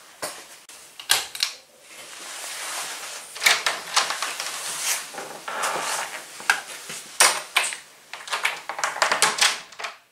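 Irregular clicks and knocks with rustling from someone moving about and handling things up close, among them a wall light switch being flicked.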